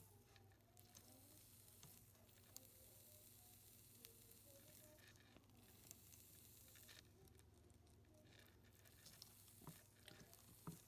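Faint fizzing of electrolyte as a satin chrome Zippo lighter is electro-etched with a DC power supply, over a steady low hum.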